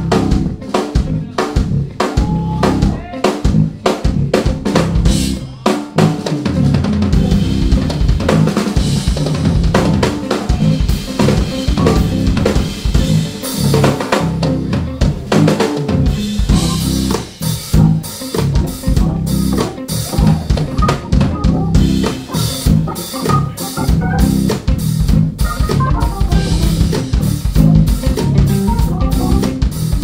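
Live band playing with the drum kit to the fore: for about the first six seconds the drums play mostly alone in sharp snare and kick hits, then electric bass, guitars and keyboard come in with them as a full band.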